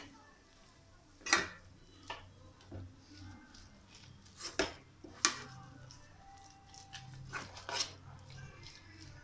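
A spatula scraping and knocking against a pan as it stirs a thick coconut and condensed milk mixture, in irregular sharp clacks, the loudest about a second in and again about halfway through.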